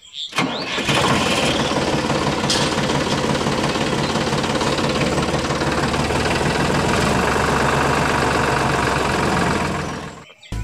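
Tractor engine running steadily with an even chugging rhythm. It fades out near the end.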